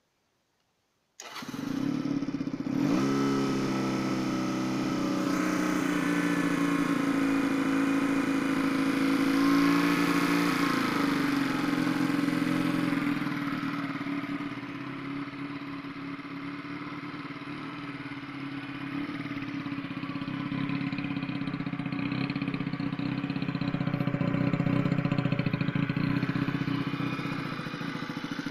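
AJS NAC 125cc motorcycle engine cold-started: it fires about a second in, rises briefly in pitch, then settles into a steady idle that swells and eases in loudness.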